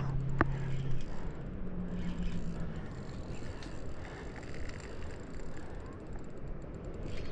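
Spinning reel being cranked to bring in a heavy fish, its gears whirring under load over steady wind and water noise. A low steady hum sits under the first couple of seconds and steps up in pitch about a second in, and there is a sharp click about half a second in.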